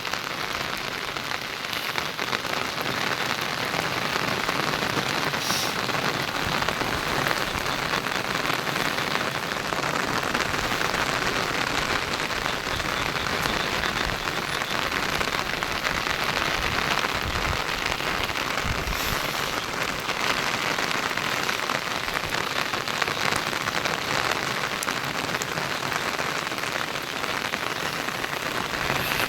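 Heavy rain pouring down steadily, a dense even hiss of rain hitting the ground and surfaces.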